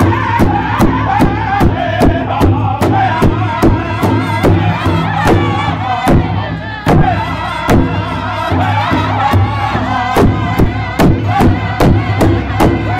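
Powwow drum group singing together in high voices over a large shared rawhide drum, struck in unison about three times a second.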